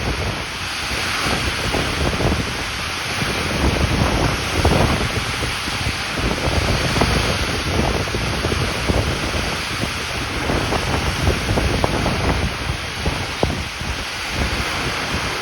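Very strong storm wind gusting, buffeting the microphone with irregular low rumbles over a steady hiss that swells and dips with the gusts.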